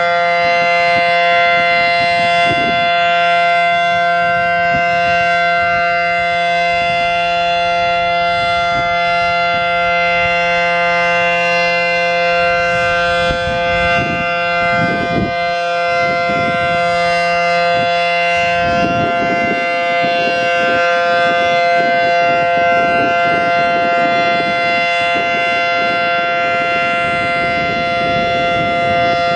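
Federal Signal Model 7T outdoor warning siren, driven by a capacitor-start induction motor, sounding its steady alert tone: a loud held chord of two main pitches from its 9/12-port rotor. A low hum stops about two-thirds of the way through, and a low rumbling noise runs under the siren after that.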